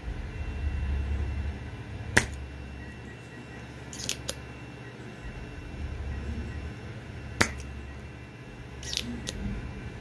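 Engineer SS-02 spring-loaded solder sucker: two sharp snaps of its plunger firing, about five seconds apart, with a pair of lighter clicks a couple of seconds after each as it is charged again. A low, uneven hum of 3D printers runs underneath.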